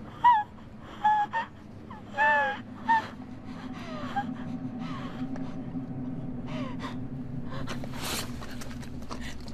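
A woman's frightened gasps and whimpering cries: five short pitched ones in the first three seconds, the longest about two seconds in, falling in pitch. After them a steady low hum carries on, with a brief rush of noise about eight seconds in.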